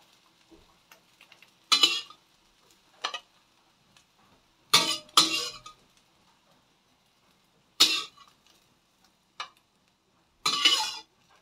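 Utensil clinking and scraping on a metal frying pan and a plate as omelette pieces are lifted out and served: about seven separate sharp clatters a second or two apart, some with a brief metallic ring.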